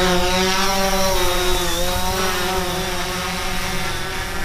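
DJI Phantom 4 quadcopter's motors and propellers running at lift-off power: a steady buzzing whine of several pitches that wavers slightly.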